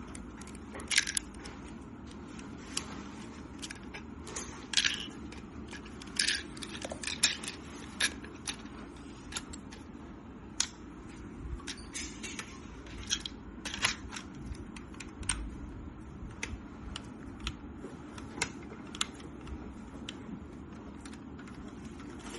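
Irregular clicks and knocks of plastic Lego pieces as a brick-built rifle model is handled and worked, over a steady low hum.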